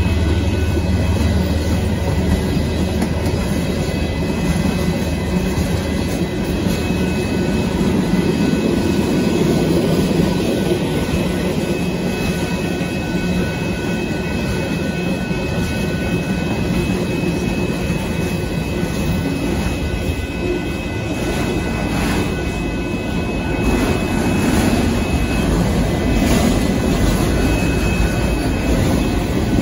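Freight train cars rolling past close by: tank cars and then autorack cars rumbling and clacking on the rails, with a thin, steady, high-pitched squeal over the rolling noise. The deep rumble of the locomotives fades away in the first couple of seconds.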